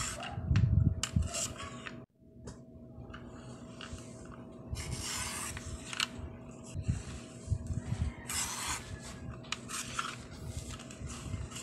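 Sliding paper trimmer at work: the cutter slid along its rail through printed card, and the paper slid and shifted across the trimmer's plastic base. The noise comes in several short strokes of a second or less, with a brief gap about two seconds in.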